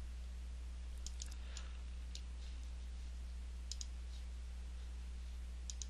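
Computer mouse clicking: a handful of sharp clicks, some in quick pairs. They come about one to two seconds in, twice near four seconds and once near the end, over a steady low electrical hum.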